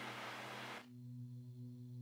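Steady hiss with a low hum that cuts off abruptly just under a second in, giving way to soft ambient background music of sustained tones.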